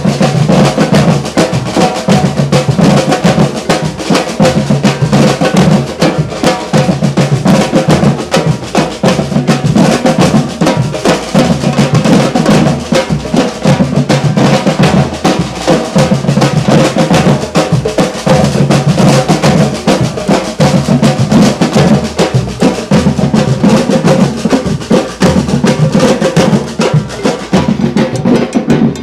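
Marching drum troupe playing together: large painted bass drums struck with sticks alongside snare drums, in a loud, dense, steady rhythm.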